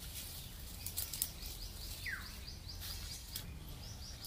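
Quiet rural background with a bird giving one short call that falls in pitch about two seconds in, and a few light clicks and rustles of dry twigs and straw being handled.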